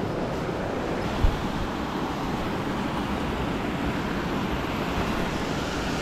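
Mountain stream rushing over rocks: a steady wash of running water, with a single low thump about a second in.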